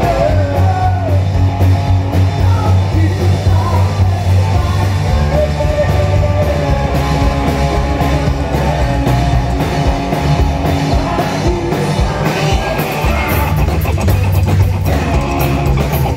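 Live rock band playing loudly with electric guitar, bass and drums, and a singing voice over them.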